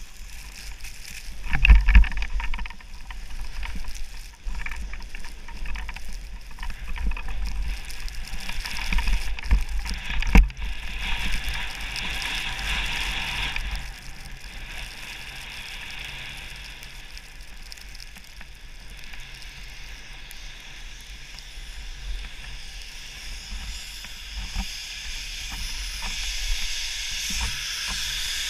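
Skis sliding and scraping over snow at speed, with a low rumble of wind against the camera and two loud knocks, about 2 s and 10 s in. Near the end a snowmaking gun's hiss grows louder.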